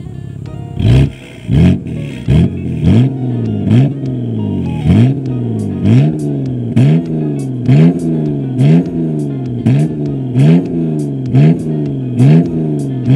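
BMW E90 325i's N52 naturally aspirated 2.5-litre straight-six, through an aftermarket quad-tip exhaust, idles for about a second and is then blipped over and over, about one rev a second. Each rev rises sharply and falls back toward idle.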